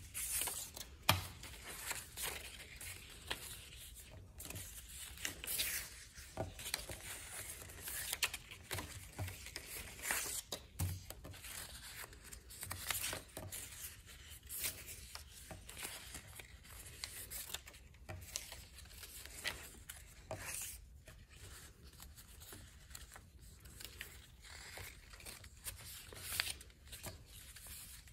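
Strips of paper rustling and crinkling as they are folded back and forth over each other into an accordion on a wooden desk, with a few soft knocks of hands pressing on the desk top.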